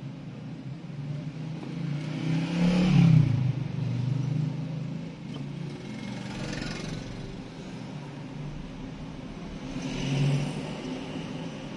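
Street traffic in a slow queue: vehicle engines running, with a nearby engine revving up and passing about three seconds in, its pitch rising then falling, and a shorter swell near the end.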